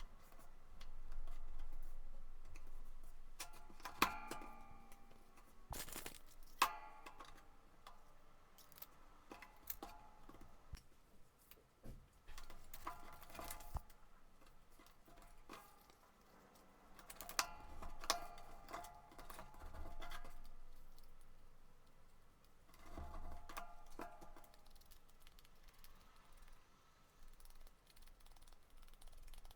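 Paper being handled and folded on a desk: faint rustles, creases, and light taps and clicks in short, scattered bursts.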